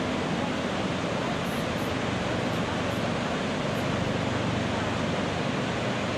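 The Iguazu Falls cascades, a very large waterfall, making a steady, unbroken rush of falling water.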